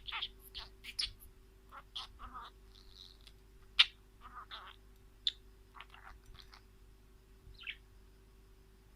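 Small wild birds chirping and calling in short, irregular notes, with one sharp, loud call about four seconds in.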